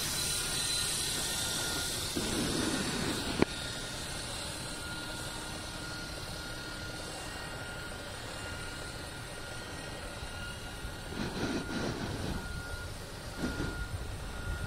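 Radio-control helicopter in flight, its rotor and motor giving a steady hum with a faint high whine, and one sharp click about three and a half seconds in.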